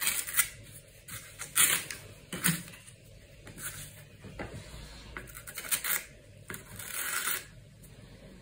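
Short, irregular scratching and rustling of corrugated cardboard as its paper layer is picked at and torn away with the tip of a pair of scissors and brushed by hand.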